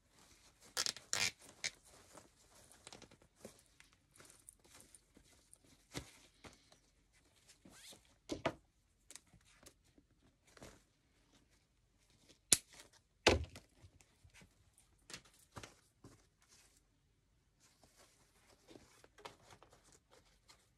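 Wired ribbon bow being handled, rustling and crinkling, with scattered light clicks and knocks; two sharp knocks a little past the middle are the loudest.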